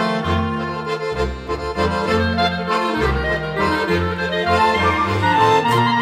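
Three clarinets and an accordion playing Swiss folk music together, the clarinets carrying the melody over the accordion's pulsing bass notes and chords.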